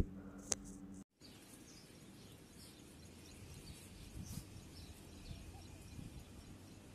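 Faint open-air ambience with scattered faint bird chirps. There is a single click about half a second in, then a brief dead dropout about a second in.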